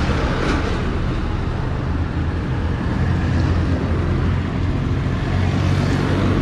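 Suzuki Smash 115's single-cylinder four-stroke engine, freshly fitted with a 57 mm big-bore cylinder, idling steadily while it warms up.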